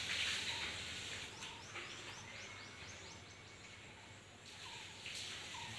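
Outdoor ambience with small birds calling: a quick run of about eight short, falling chirps about a second and a half in, and a few faint short notes around it, over a soft hiss that fades about a second in.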